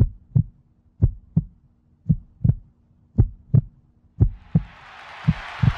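Heartbeat sound effect: six slow double thumps, lub-dub, about one a second, over a faint low hum. A hiss swells in over the last second or so.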